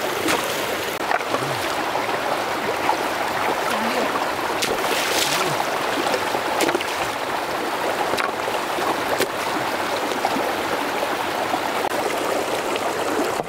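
Shallow stream flowing steadily, with splashes and a few sharp knocks as rocks are lifted from the streambed and set down in the water to build a stone weir.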